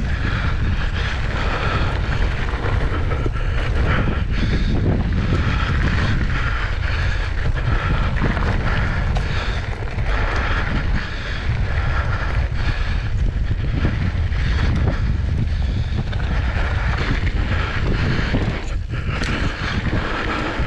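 Wind buffeting the microphone of a mountain bike's action camera on a dry dirt-trail descent. Under it the tyres roll on the loose dirt and the bike rattles over many small bumps.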